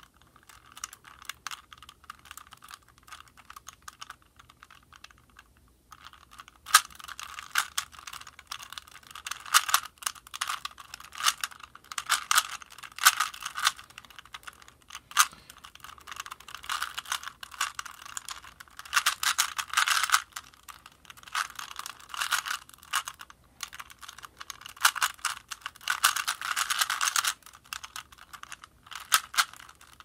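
Original Rubik's-brand 3x3 cube being turned fast by hand in a solve: plastic layers clicking and clacking in bursts of quick turns with short pauses. The clicking is fainter for about the first six seconds, then comes in louder runs.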